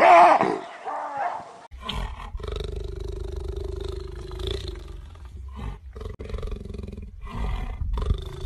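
A baboon's call, loudest at the very start and ending about a second and a half in, then a big cat's deep growling roar that rumbles on in uneven pulses with a held tone over it.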